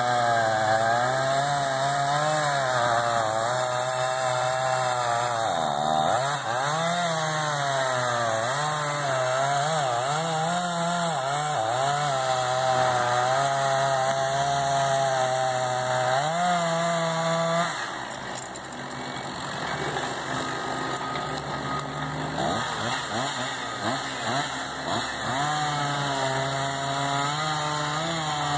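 Chainsaw cutting a tree, its engine pitch repeatedly dipping and rising as the chain loads up in the wood. About two-thirds of the way through it drops to a quieter, rougher sound, then runs up and cuts again near the end.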